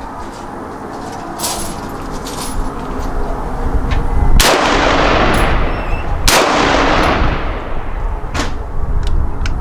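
Two loud shots from an AR-style pistol (Radical Firearms), about two seconds apart, a little under halfway in and again past the middle, each followed by a long echoing tail.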